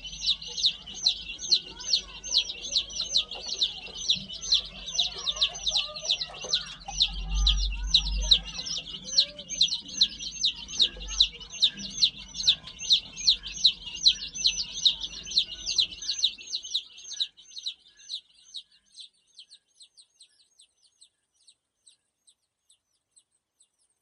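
Young chicks cheeping without a break, several high peeps a second, over a low rumble. The peeping thins out and stops about two-thirds of the way through, leaving near silence.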